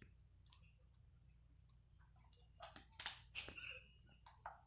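Mostly near silence, broken by a short run of faint clicks and rustles about two and a half seconds in: a small plastic slime pot being pried open.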